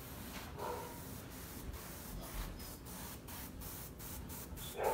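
Airbrush spraying paint in short hissing spurts, about three to four a second.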